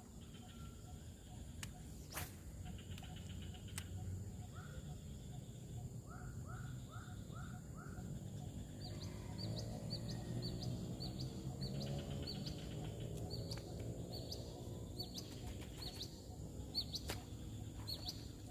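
Birds calling: a run of five short rising notes about five seconds in, then quick high chirps repeated through the second half. Under them runs a steady low hum, and a sharp click comes about two seconds in.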